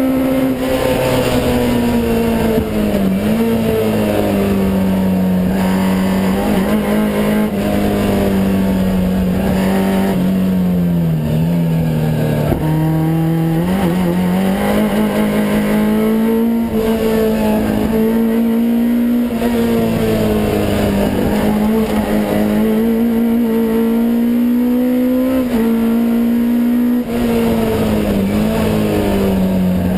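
Vauxhall Nova's 258 bhp naturally aspirated race engine with throttle bodies, heard from inside the cabin at racing revs. Loud throughout, its revs dip and climb again about half a dozen times.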